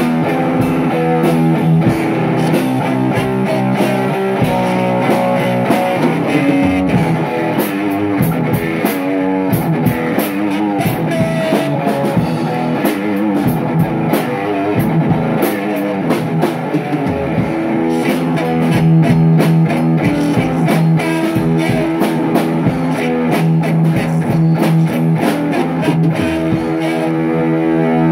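Rock music: guitar playing over a steady drum beat.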